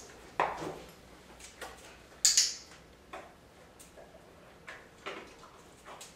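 A dog-training clicker gives a sharp double click about two seconds in, marking the dog's behaviour for a treat. Lighter taps and knocks around it come from a large dog shifting about on a tile floor.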